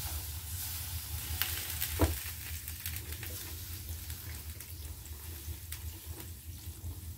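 Water poured from a bottle onto a hot crankshaft pulley on a Kawasaki 15.5 hp engine, sizzling and crackling as it quenches the metal to shrink it and break the rust free. One sharper pop about two seconds in, over a steady low hum.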